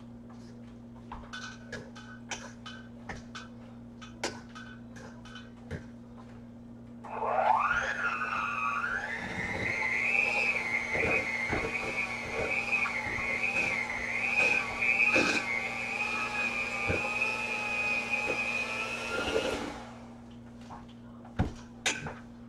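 Clinks and taps of mixer beaters pressing boiled potatoes down in a metal bowl, then an electric hand mixer starts about seven seconds in with a quickly rising whine. It runs steadily for about twelve seconds with a slight waver, mashing the potatoes, then cuts off, followed by a few more taps against the bowl.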